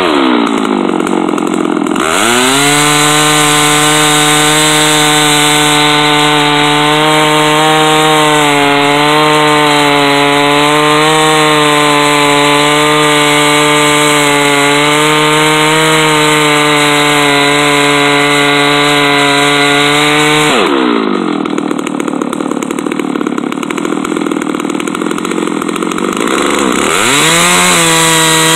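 Chainsaw in a chainsaw mill running at full throttle, ripping a poplar log lengthwise into boards about 1.5 inches thick; under load the engine note wavers slightly. The revs dip and climb back in the first couple of seconds. About two-thirds of the way through, the throttle comes off and the saw runs lower and quieter for several seconds, then revs back up near the end.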